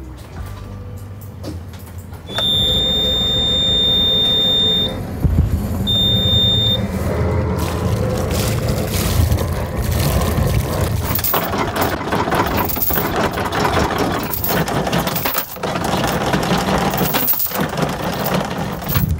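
Background music, with a high electronic beep held for a couple of seconds early on and then a shorter second beep.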